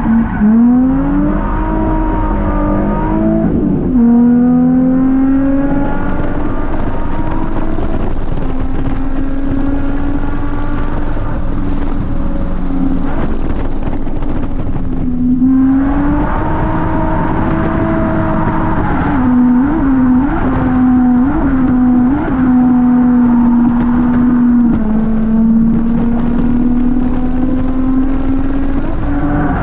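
Nissan Z33's 3.5-litre VQ V6 engine running hard at high revs on track, heard from inside the cabin. The engine note holds mostly steady, dips and climbs again at a gear change about halfway through, and wobbles quickly a few times shortly after.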